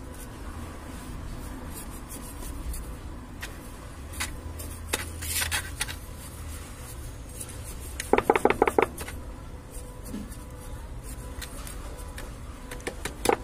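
Metal scraper blade scraping and poking at soil in a plastic-bottle planter, with scattered clicks and a quick run of sharp taps about eight seconds in.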